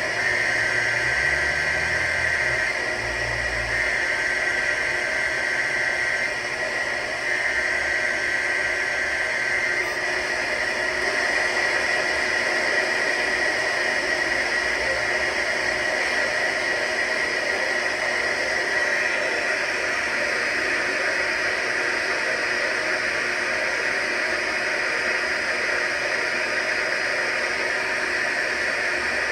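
Steady hiss of radio static, with a few faint steady tones in it.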